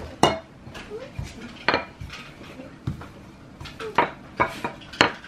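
Irregular clatter of kitchen dishes and metal utensils: about eight sharp knocks and clinks at uneven intervals.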